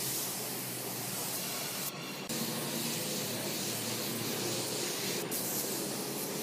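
Steady hiss of a compressed-air spray gun spraying wood finish onto a hardwood slab, dipping briefly about two seconds in.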